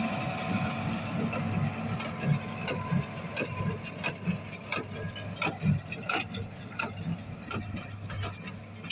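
Tractor and small square baler at work: the engine runs steadily under a regular mechanical knocking, close to two strokes a second, from the baler's plunger packing hay.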